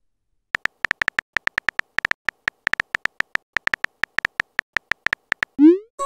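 Simulated phone-keyboard tap clicks from a texting-story chat app, a rapid uneven run of short ticks, about eight a second, as a message is typed. Near the end a quick rising swoop sounds as the message is sent.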